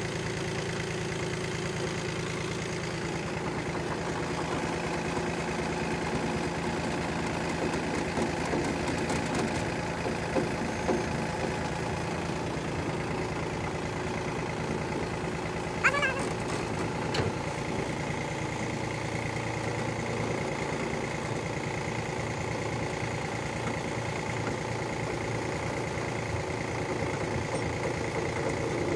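Tractor engine idling steadily while the trolley's hydraulic tipping jack works. A short high chirp about halfway through.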